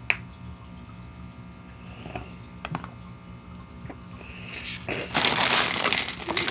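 Small plastic clicks and taps of LEGO pieces being handled, with one sharp click just after the start. About five seconds in, a loud rustling starts as loose pieces are rummaged through.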